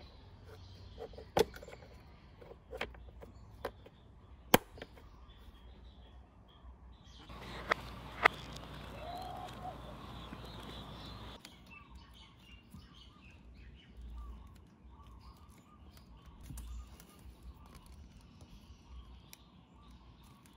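Scattered sharp clicks and taps of plastic wiring clips and connectors being handled, as sensor wires are pressed back into their clamp and connectors are joined. Faint bird chirps can be heard in the second half.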